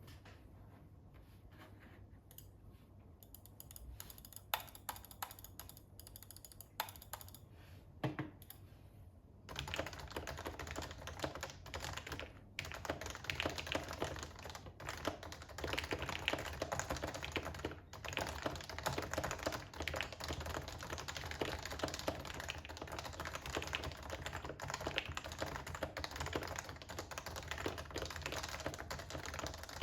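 Typing on a Happy Hacking Keyboard Professional 2 with stock Topre rubber-dome switches and sliders and lubed stabilizers: a few scattered keystrokes at first, then fast, continuous typing from about ten seconds in.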